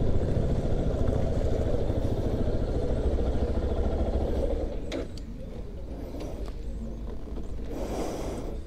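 Yamaha Ténéré 250's single-cylinder four-stroke engine idling as the bike stands, then switched off with the key about five seconds in; the running noise drops away with a short click.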